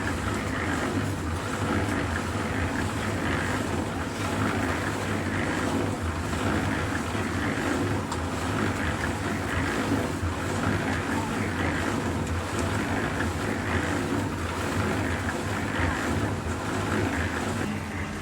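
Engine of concrete-pouring machinery running steadily, a continuous low hum with a rushing noise over it.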